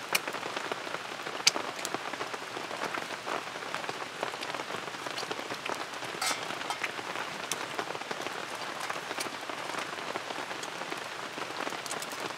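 Steady rain falling, with many separate drops striking close by, one sharper hit about a second and a half in.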